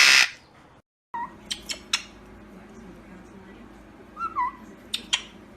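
A pet parrot's few short, soft chirps with sharp clicks and taps between them, after a brief loud hissy burst at the very start.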